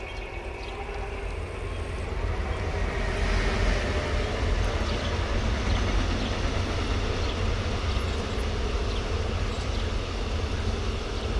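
Train running on its track, growing louder over the first three or four seconds and then holding steady.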